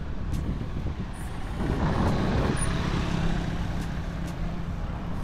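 Street traffic: motor vehicles running and passing close by, a louder swell as one goes past about two seconds in, then a steady low engine hum.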